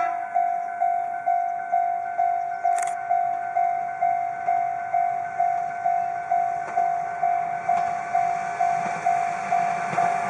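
Railway level crossing alarm ringing steadily, a single pitched tone struck about twice a second. Over the last couple of seconds the running noise of an approaching Izuhakone Railway 3000 series electric train grows beneath it.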